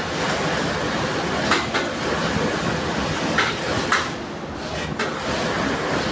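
Steady mechanical running noise with a few short sharp clicks and clacks, about five in all, that stand out from it.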